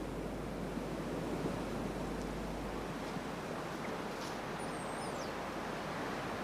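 Steady rushing outdoor ambience, with one brief high-pitched chirp about five seconds in.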